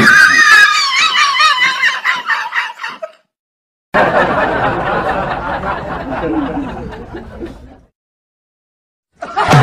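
High-pitched laughter that stops abruptly about three seconds in, then a second stretch of laughter that also cuts off suddenly.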